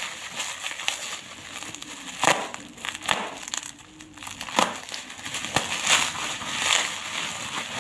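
Parcel packaging crinkling and crackling as it is handled and unwrapped, with several sharp snaps among the rustling.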